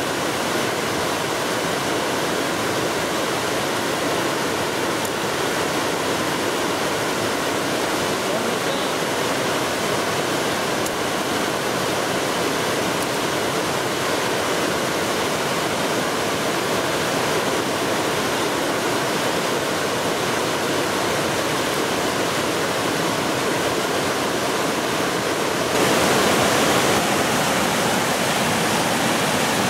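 Fast mountain river rushing over rapids: a steady roar of water that grows a little louder about 26 seconds in.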